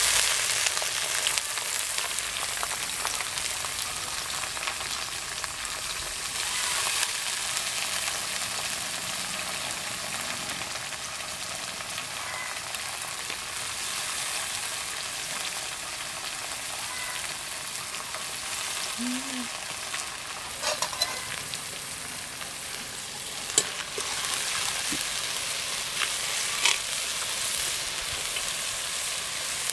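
Washed dried fish sizzling steadily as it fries in hot oil in a metal kadai. A few sharp clicks come in the later part, from a slotted ladle stirring against the pan.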